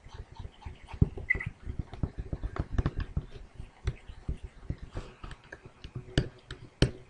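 Stylus tapping and scratching on a drawing tablet in quick, irregular strokes, a few light taps a second.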